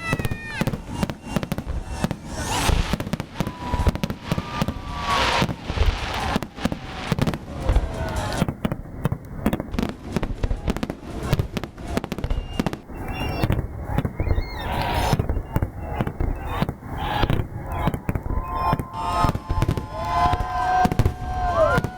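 Fireworks display: a dense, continuous barrage of bangs and crackling bursts, with some whistling tones near the end.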